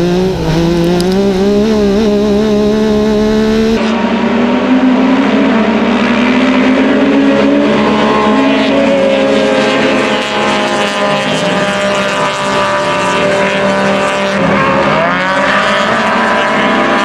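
Yamaha YXZ1000R's three-cylinder engine running hard, heard from inside the cab. About four seconds in it changes to a pack of racing UTVs heard from trackside: several engines running at once, their pitch rising and falling as they lap the course.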